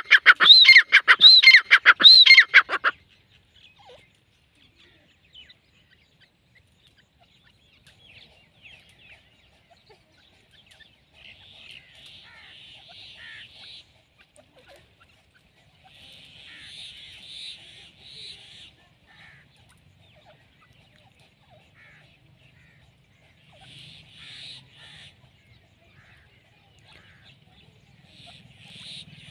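Grey francolin (teetar) calling: a loud run of shrill notes, each rising and falling, about two a second, breaking off about three seconds in. The rest is faint.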